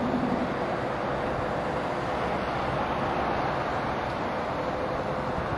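Steady background noise with a faint steady hum, like distant road traffic or a camera's own noise.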